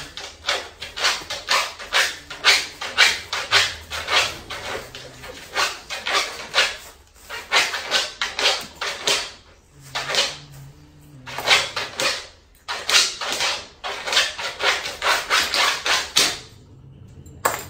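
Puppies scrabbling and scratching with their claws at a wooden box and on the newspaper-covered floor, a quick run of scratchy strokes, several a second, that stops near the end.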